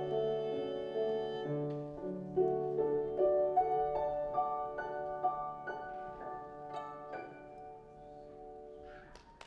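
Violin and piano playing a slow melodic passage, note by note, fading toward the end, with a few short clicks just before it stops.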